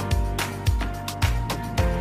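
Background music with a steady beat: low drum thumps about twice a second with lighter ticks between them, over sustained melodic notes.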